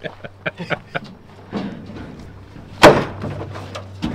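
Yellow tie-down straps and their hardware being handled while a car is secured on a trailer: a quick run of clicks and knocks in the first second, then one loud sharp thud a little before three seconds in.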